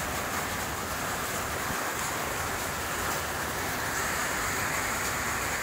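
A steady, even hiss of background noise with no distinct knocks, calls or voices.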